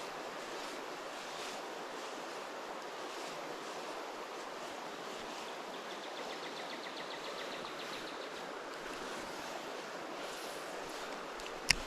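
River water rushing steadily. Midway through there is a faint, fast ticking, and a single sharp click comes near the end.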